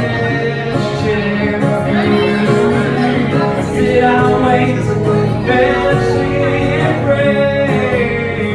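Live acoustic music: a singer performing over an acoustic guitar.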